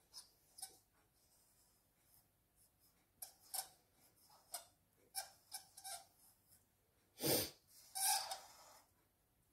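Faint scratching of a black pen on paper in short, separate strokes as an outline is traced. Two louder, breathy noises come near the end, the first short and the second about half a second long.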